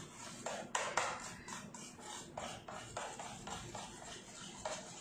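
A utensil stirring melting chocolate in a stainless steel bowl set over a pan of hot water, scraping and tapping against the metal about three times a second, over a faint steady hum.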